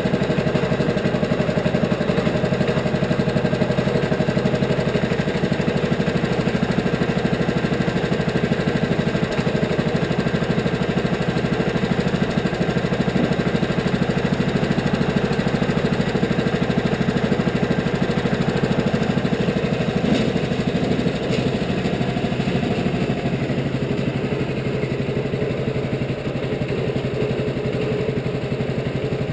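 Wood-Mizer LT15 portable sawmill's engine running steadily, easing off slightly about twenty seconds in.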